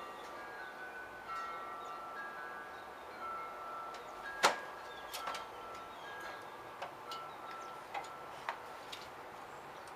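Wind chimes ringing, a string of held notes at several pitches overlapping one another. A loud sharp click about four and a half seconds in, and a few fainter clicks after it.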